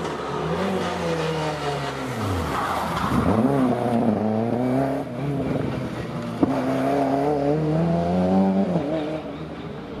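Rally car engine revving hard down the stage, the revs falling sharply as it brakes and changes down for a tight tarmac hairpin, then climbing again as it accelerates out and fading as it drives off. A single sharp crack about six seconds in.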